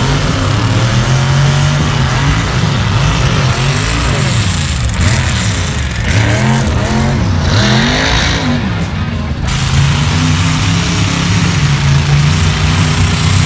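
Engines of modified off-road trucks racing on a dirt drag track: a steady low engine drone. From about four to nine seconds in, a vehicle accelerates hard, its engine pitch climbing and dropping several times.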